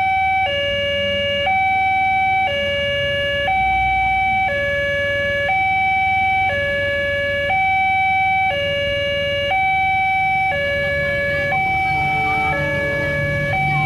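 Indonesian railway level-crossing warning siren sounding a steady two-tone alarm, alternating high and low with each tone held about a second: the crossing is warning of an approaching train.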